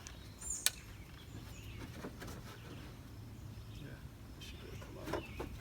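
A single sharp click about two-thirds of a second in, over a low steady background rumble with a few faint bird chirps.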